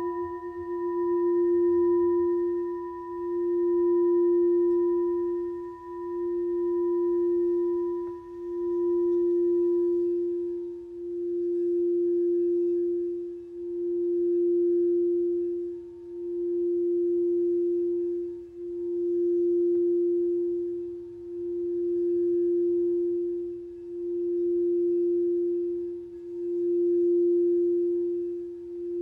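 Singing bowl ringing with one steady low tone that swells and fades in a slow regular pulse, about every two and a half seconds. Its higher overtones die away over the first ten seconds, leaving the single pulsing tone.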